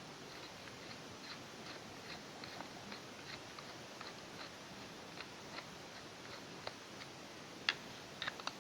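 Faint small clicks and ticks of hand tools and small parts being handled as a camera is taken apart, scattered irregularly, with a sharper click near the end and a quick run of three more just after it.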